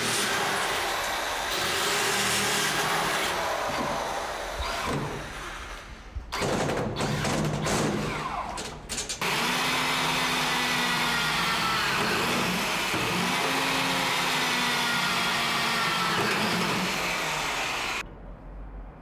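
Hand-held electric drill boring into a steel door, its motor pitch wavering under load. A choppier stretch of knocks and clatter breaks in partway through.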